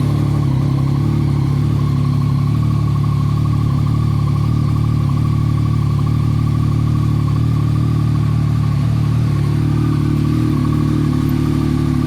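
Yamaha MT-09's three-cylinder engine idling steadily.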